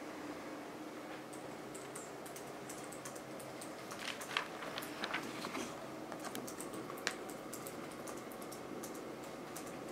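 Typing on a computer keyboard: irregular key clicks that come thickest in the middle, over a steady low room hum.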